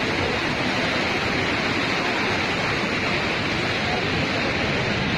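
Godavari river floodwater rushing and churning as it pours into the rice fields, a steady, even rush of water.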